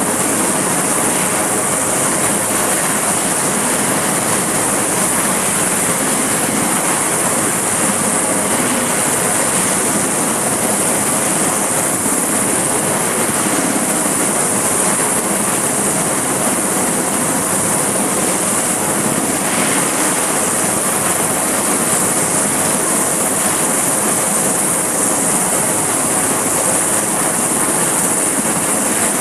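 Sikorsky S-61 helicopter running steadily: its twin turboshaft engines and rotor make a loud, even rush with a strong high hiss, holding the same level and pitch throughout.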